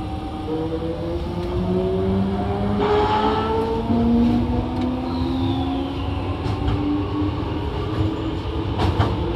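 Toei 5300 series train's inverter and traction motors pulling away: several whining tones climb steadily in pitch, and the set of tones changes about three seconds in. Under them is the rumble of wheels on rail, with a couple of sharp clicks near the end.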